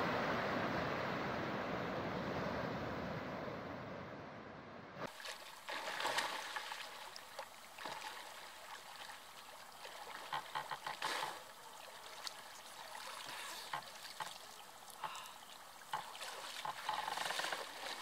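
Sea surf washing in a steady rush that fades down over about five seconds and then stops abruptly. After that come small, scattered splashes and trickling water from a person swimming and wading in a calm lake.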